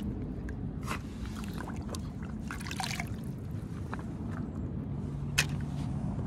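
Shallow stream water trickling over rocks, with small splashes and drips as a toy car is lifted out of the water. A sharp click about five seconds in, the plastic toy car being set down in the basket among the others.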